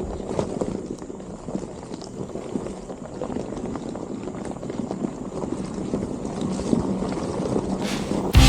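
Low, crackly rumbling noise with wind buffeting the microphone, and a faint steady hum underneath. Loud music cuts in abruptly at the very end.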